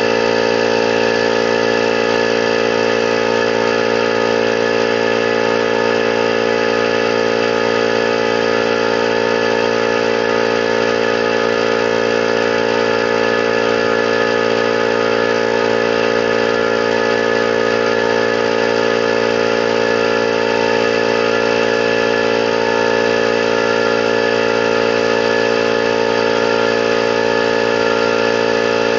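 21-gallon air compressor running steadily under load, its motor and pump holding one even, unchanging pitch while it fills the tank.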